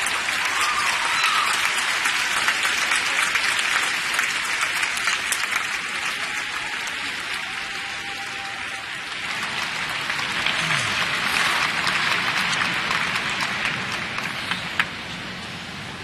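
A large arena crowd applauding. The clapping eases off about halfway through, swells again, then fades near the end.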